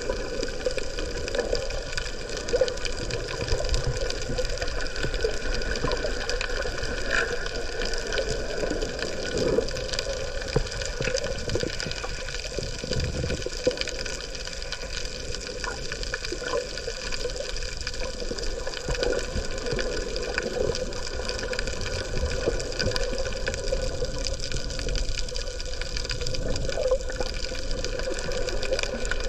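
Underwater ambience through a submerged camera: a steady watery rush with a constant hum of several fixed tones and scattered faint clicks.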